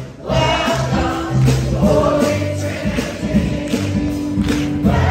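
Gospel choir singing with a live church band, held bass notes under the voices and a steady percussion beat.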